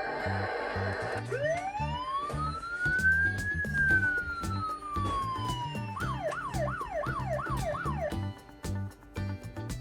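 Toy fire station's electronic siren sound effect: one slow wail that rises and then falls, followed near the end by a quick yelping warble of about six cycles. It plays over background music with a steady beat.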